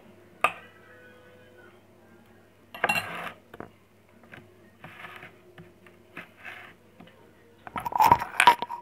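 A metal spoon clinking and scraping on ceramic bowl and plate as sambal and grilled fish are served: a sharp clink about half a second in, short scraping bursts at about three and five seconds, and light taps between. A louder clatter near the end, over a steady low hum.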